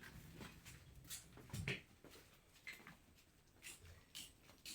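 Near quiet, with a few faint scattered clicks and knocks; the loudest is a dull thump about one and a half seconds in.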